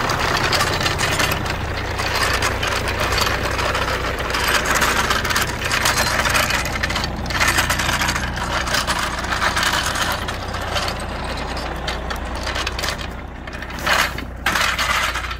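Blue low-profile floor jack dragged by its handle over gravel, its wheels crunching and rattling on the stones, over a steady low hum. Near the end it rolls onto a tarp with a brief louder clatter.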